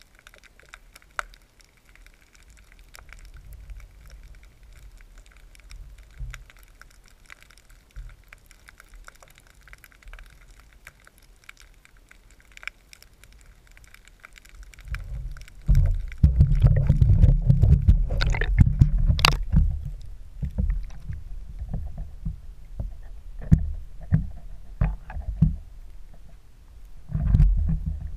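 Underwater sound through a camera housing. There is faint crackling at first. From about halfway through come loud low rumbling, water sloshing against the housing and several knocks as the camera is moved through the water and brought up to the surface.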